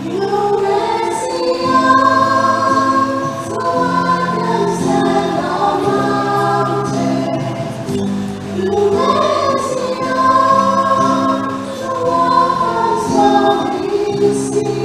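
A church choir singing a hymn or gospel song in several voices over sustained low accompanying notes.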